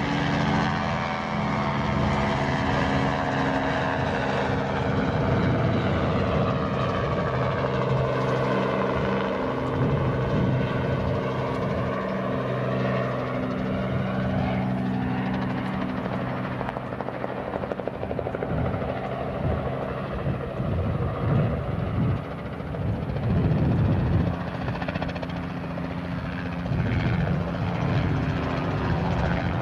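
Robinson R44 helicopter flying low crop-spraying passes: the steady beat of its rotor and the drone of its six-cylinder Lycoming piston engine, the pitch gliding up and down as it sweeps past.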